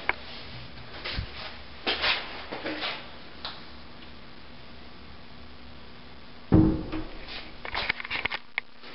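Scattered knocks and clunks over a steady low hum, with one louder thump and a short squeak about six and a half seconds in, followed by a run of small clicks.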